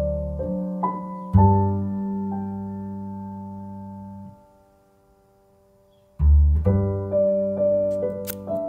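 Soft background piano music, fading out to near silence for a couple of seconds partway through, then resuming. A few sharp clicks near the end.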